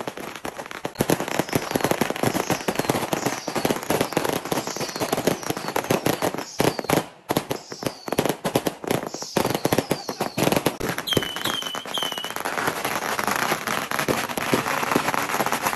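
Strings of Chinese firecrackers going off in a rapid, continuous crackle of bangs, with a short lull about seven seconds in. Three short high chirps sound over the crackle about eleven seconds in.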